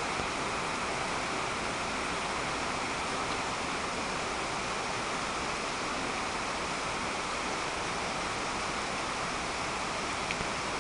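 Heavy rain pouring onto standing floodwater, a steady, even rush with no breaks.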